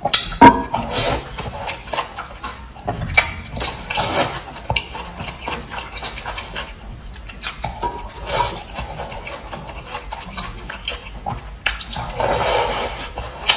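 Close-miked eating sounds: a quick run of wet clicks, smacks and crunches, with a longer noisy stretch near the end.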